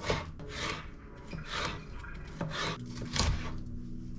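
Kitchen knife slicing through a tomato and then a red bell pepper on a plastic cutting board: a series of rasping cuts, one every half second to second.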